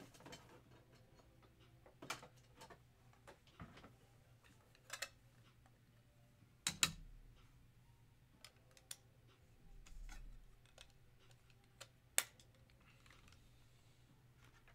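Scattered light clicks and taps of objects being handled and set down on a table, irregular and a second or more apart, the sharpest about seven and twelve seconds in, over a faint steady hum.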